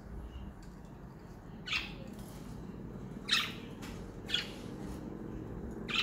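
Pet budgerigars giving short, sharp chirping calls, four within a few seconds, the second one the loudest, over a steady low hum.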